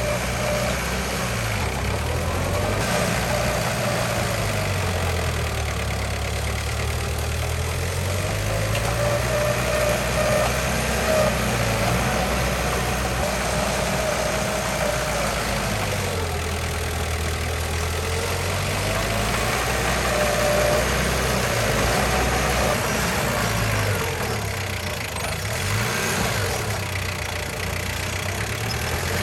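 Old Mitsubishi bulldozer's diesel engine running steadily while working, its pitch sagging and rising again several times.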